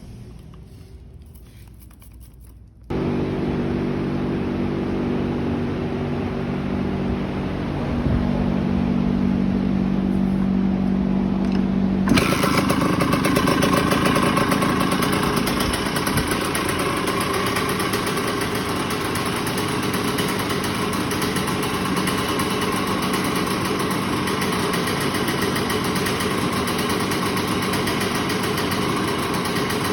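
Suzuki RM125's single-cylinder two-stroke engine running. It comes in suddenly about three seconds in with a steady, even tone, and about twelve seconds in turns louder and rougher, holding there after that.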